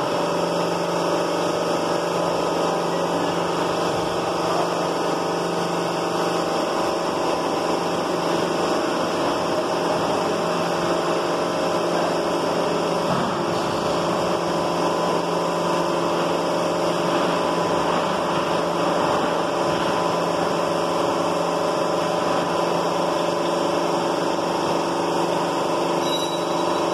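Electric lifting jacks of a railway coach lifting system running steadily while holding or raising the coach body above its bogie: a continuous mechanical drone with a steady hum.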